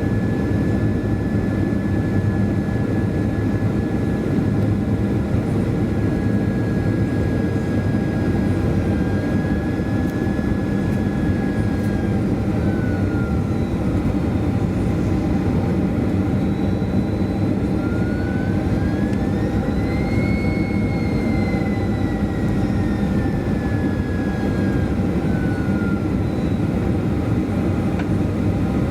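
Boeing 737-400 cabin noise on approach: a steady loud rush of air and engine noise, with the CFM56-3 engines' thin whine dropping about twelve seconds in, then climbing and sliding down again a few seconds later as the engine power is changed.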